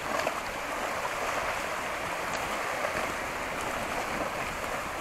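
Steady wash of small wind-driven waves lapping against the lagoon shore.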